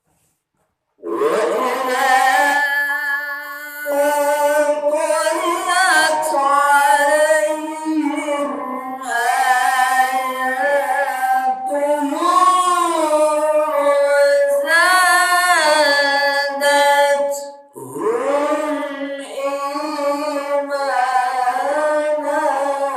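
A single voice chanting in long, melodic, ornamented phrases with held notes and short breaks for breath, in the style of Quranic recitation (tilawah).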